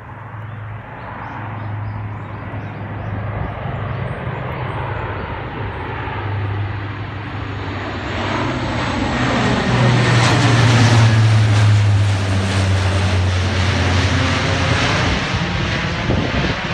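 Four-engine military turboprop transport, a C-130 Hercules, flying low overhead with a deep propeller drone. The drone grows louder over the first ten seconds and drops in pitch as the aircraft passes over.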